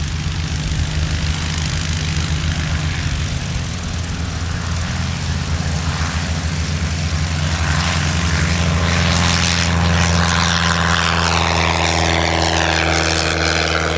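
Single-engine propeller light plane, a yellow Cub-style high-wing, running at takeoff power as it rolls down the runway and lifts off. The engine and propeller drone grows a little louder in the second half, and its pitch falls slightly near the end as the plane passes.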